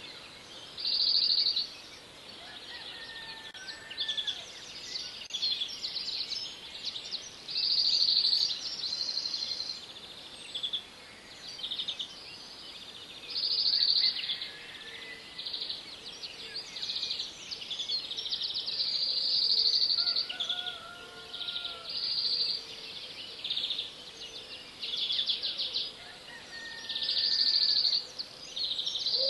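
Outdoor ambience of repeated short, high chirring trills, each under a second, coming every second or two, with a few fainter lower calls among them.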